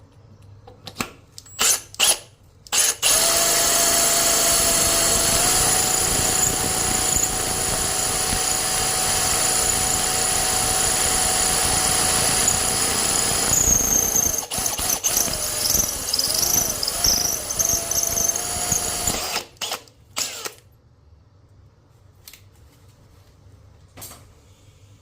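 Electric drill boring into a ceramic toilet bowl. The trigger is blipped a few times, then the drill runs steadily for about sixteen seconds with a steady whine that wavers in the second half. It stops, with two short bursts after.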